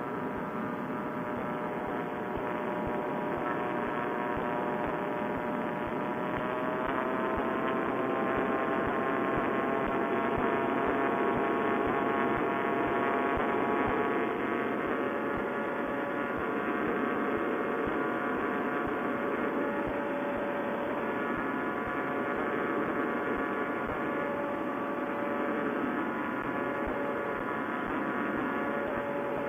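Vittorazi Moster two-stroke paramotor engine running steadily in flight, its pitch rising slightly about seven seconds in and then holding, heard through a Bluetooth headset microphone that cuts off the high end.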